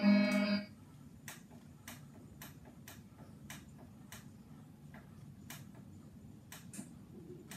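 Guitar music cuts off about half a second in, leaving faint, sharp ticking at roughly two ticks a second, slightly uneven, over a quiet background.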